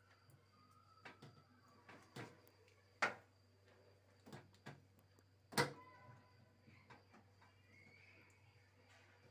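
Scattered light clicks and knocks of fittings and tools being handled during a plumbing hookup, with two sharper knocks about three and five and a half seconds in.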